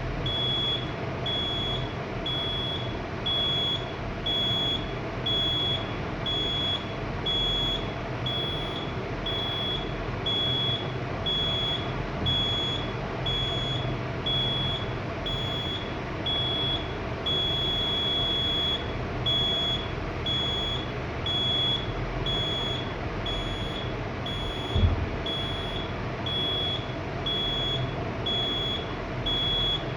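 Fire alarm system buzzer beeping in an even, quick rhythm, about three high beeps every two seconds, with one longer beep a little past the middle. A single dull bump comes towards the end.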